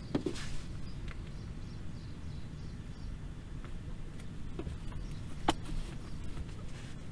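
Low steady rumble inside a parked car's cabin, with a short rustle near the start and a few light handling clicks as a phone in its case is taken out and held, the sharpest click about five and a half seconds in.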